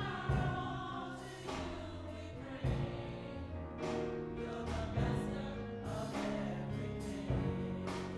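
Slow gospel music between a soloist's sung lines: held chords over a bass line, a light beat about every second, and a choir singing along.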